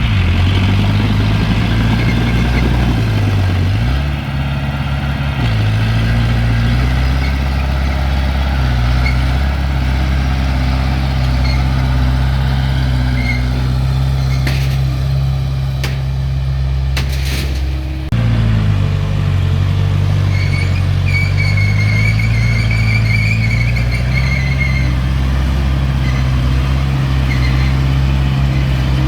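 Diesel engine of a mini bulldozer running steadily at work, its pitch dipping briefly twice as the load or throttle changes. A few sharp clicks come in the middle, and a thin, wavering high squeal follows later.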